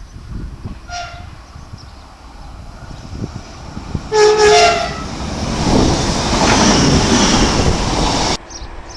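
A train's horn sounds one loud, short blast of two notes as a greeting, then the train passes at speed with a swelling rush and clatter of wheels on rail, which cuts off suddenly.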